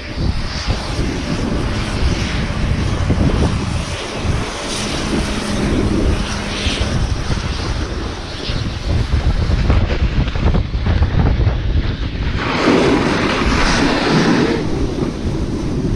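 Wind buffeting a moving camera's microphone at speed, with the snowboard sliding and scraping over snow; the rush of snow grows louder for a couple of seconds near the end.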